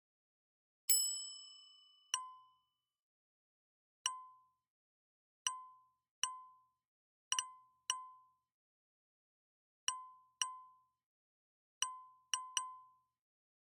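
Electronic auction-software alert dings: one longer multi-tone chime about a second in, then about a dozen short, identical pings at uneven intervals, with dead silence between, typical of bid notifications arriving.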